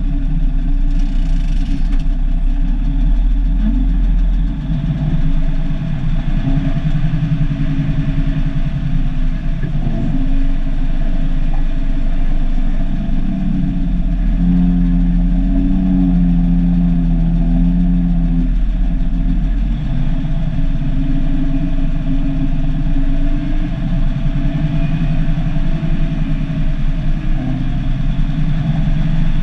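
Cummins NH-180 turbocharged inline-six diesel of an International F-210D dump truck running under way, heard from inside the cab. The engine note rises and falls with the throttle and is strongest around the middle.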